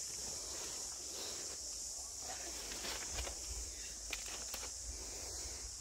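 Garden ambience: a steady high-pitched insect drone, a few soft rustling footsteps on bark mulch, and a low rumble that grows about halfway through.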